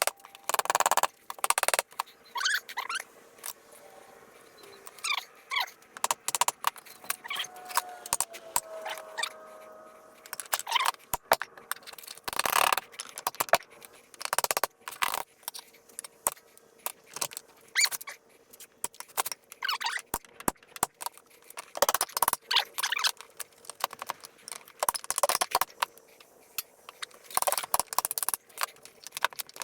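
Irregular metallic clicks, clinks and knocks of tools and engine parts being handled while a motorcycle engine's crankcase halves are worked apart, with a short squeak about a third of the way in.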